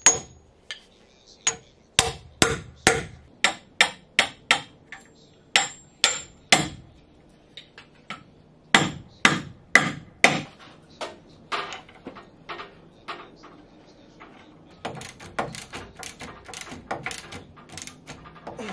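Hammer blows on galvanized steel through-bolts set in a laminated white oak boat stem: a run of sharp strikes, about two a second, with short pauses, then lighter, quicker knocks near the end.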